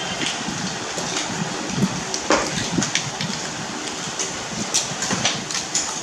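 Oyster shucking by hand: a small pointed shucking knife clicking and scraping against oyster shells in irregular sharp ticks, over a steady background noise.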